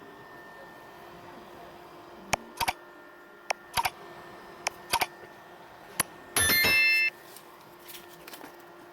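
A small electric fan's steady hum, broken by a run of sharp clicks and then a loud ringing tone, like a beep or chime, lasting under a second.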